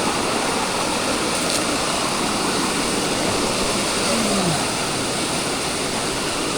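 Steady rush of water pouring down the rocks of a tiered jungle waterfall, an even noise with no breaks.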